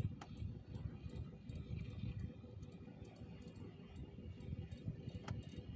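Fishing reel clicking in quick, irregular ticks as a fish is wound in on a bent rod, with a few sharper clicks near the start and near the end, over a low rumble.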